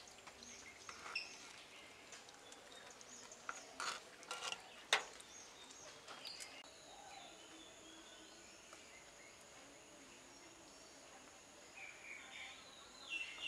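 Metal spoon stirring curry in an earthenware pot, with a few sharp clinks against the pot, the loudest about five seconds in. Behind it, birds chirp and a steady high insect drone starts about halfway through.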